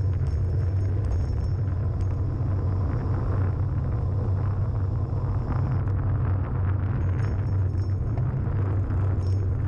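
Steady wind rumble buffeting the microphone, mixed with tyre or wheel noise on asphalt, during a fast downhill descent, with light high rattles here and there.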